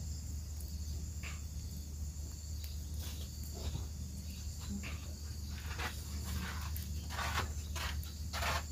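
Insects chirping steadily in a continuous high drone, with scattered soft rustles and crackles throughout.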